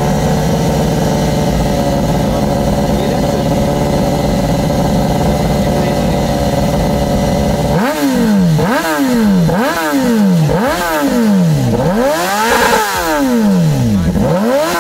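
BMW superbike's inline-four engine revved on the spot. It is held at a steady high rev for about eight seconds, then blipped over and over, about once a second, each rev rising and falling in pitch.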